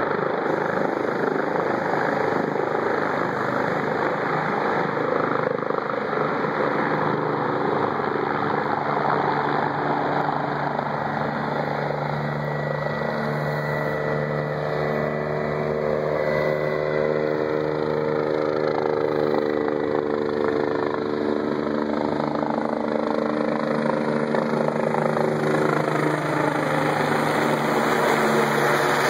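Air ambulance helicopter's rotor and turbine noise, steady and loud. Through the middle a humming drone comes up and slowly shifts in pitch, then fades again.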